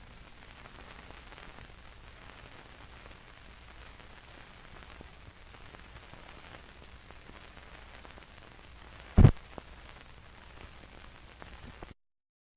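Blank old film soundtrack running: steady hiss with a low hum and light crackle, and one sharp loud pop about nine seconds in. The sound cuts to dead silence near the end.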